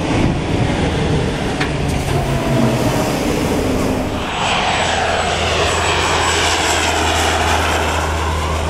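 Propeller aircraft flying low past, with a steady low engine drone. From about four seconds in, a closer engine sound takes over, with a sweeping, wavering quality and a thin high whine.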